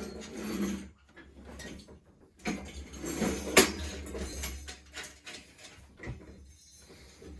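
Metal parts of a plasterboard panel lifter being handled and set: scattered knocks and rattles, with a sharp click about three and a half seconds in.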